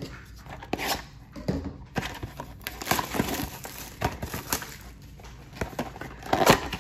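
Clear plastic shrink wrap crinkling and tearing as it is pulled off a trading-card box, in an irregular run of crackles, loudest near the end.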